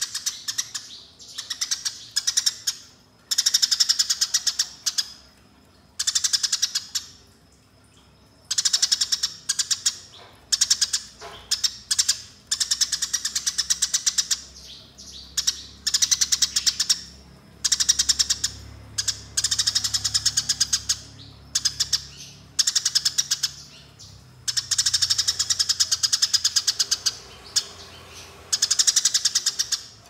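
Eurasian tree sparrow singing its fast rolling 'fighting' chatter: dense runs of rapidly repeated high chirps, in bursts of one to three seconds separated by short pauses.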